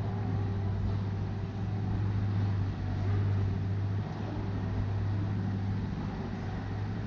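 Street noise carried by a steady low engine hum from a motor vehicle, a little louder around the middle.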